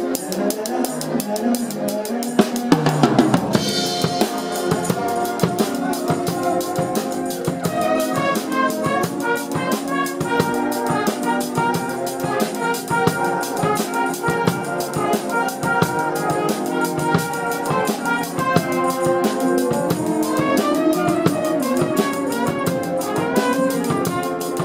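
A youth band playing, with a drum kit played close by keeping a steady beat on snare, bass drum and cymbals under held melody notes.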